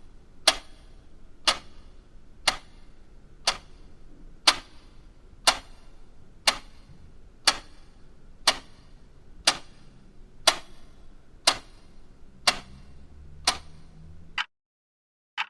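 Clock ticking steadily, one sharp tick a second over a faint low background hum. About a second before the end the background cuts out and the last tick sounds on its own in silence.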